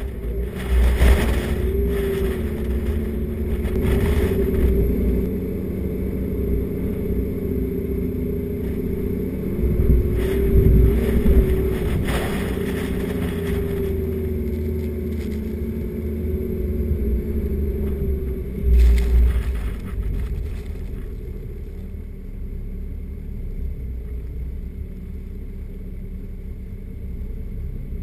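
A four-wheel drive's engine drones steadily as it drives over a soft sand track, over a constant low rumble. There are several louder bursts of rumble and rattle as the vehicle jolts along: about a second in, around ten to twelve seconds in, and about two-thirds of the way through.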